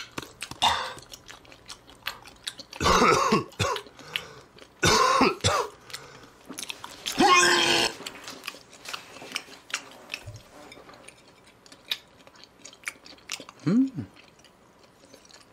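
A man chewing raw beef, clearing his throat and coughing in three loud bursts about 3, 5 and 7 seconds in. Between and after them, soft chewing and small mouth clicks.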